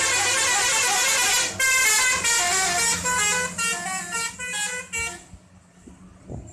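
Bus telolet horn playing a long melody of quick stepped notes, which stops about five seconds in. A brief low knock follows near the end.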